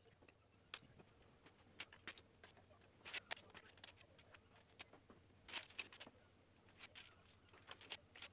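Faint clicks and clatter of plastic Lego bricks being picked from a pile and pressed together, in scattered single clicks with two quick bunches about three seconds in and about five and a half seconds in.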